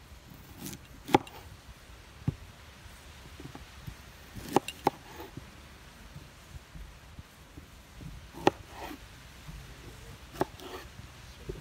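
Kitchen knife slicing a raw quince on a wooden cutting board: sharp knocks each time the blade cuts through the hard fruit and meets the board, at irregular intervals of one to a few seconds, some in quick pairs.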